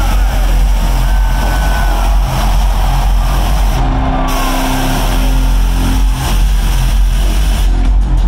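Stage smoke jets blasting in long hissing bursts, cutting out briefly about four seconds in and stopping near the end, over loud arena music with a steady low beat.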